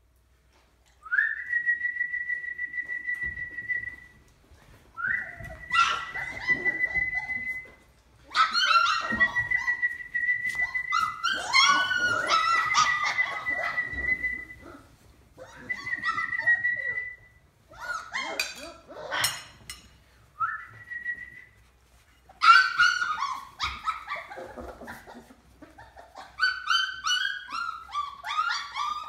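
A whistle blown as a call to food: several long, steady high notes of one to three seconds each, repeated about six times. A litter of puppies wakes and answers with yelps and whimpers that grow busier toward the end.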